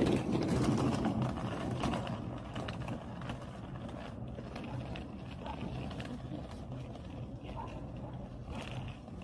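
A motor engine running steadily with a low hum, louder in the first couple of seconds and then easing off.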